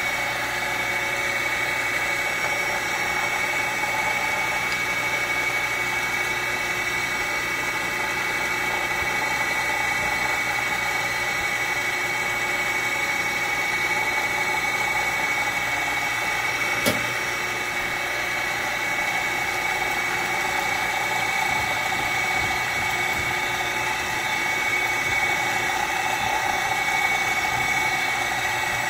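Surface grinder running with its wheel not cutting: a steady machine whine with a high tone. One short knock comes about seventeen seconds in.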